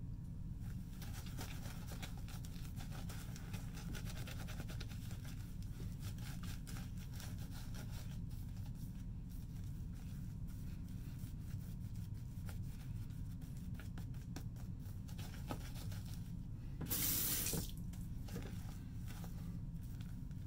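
Synthetic shaving brush working lather over a stubbly face, a soft, rapid bristly scratching, while relathering for the next shaving pass. A steady low hum sits underneath. About 17 seconds in comes a brief, loud hiss lasting about half a second.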